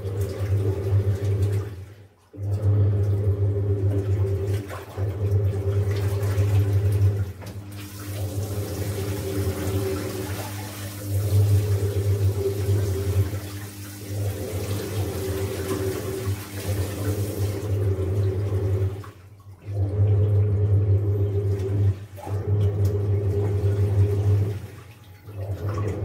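IFB TL-SDG 9.5 kg Aqua top-load washing machine in its rinse cycle: the motor drives the pulsator with a steady hum while the water churns and sloshes around a blanket. The motor drops out briefly three times, about 2 s, 19 s and 25 s in, and the rush of water is louder for about ten seconds in the middle.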